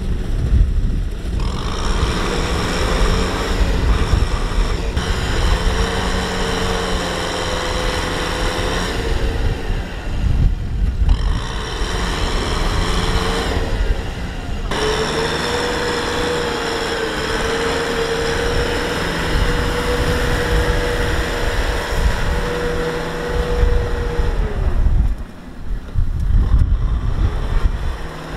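Kubota M6040SU tractor's four-cylinder diesel engine running hard under load as the tractor pulls a loaded rice trailer through deep mud, with a steady whine over the engine note. The engine note changes several times and dips briefly near the end.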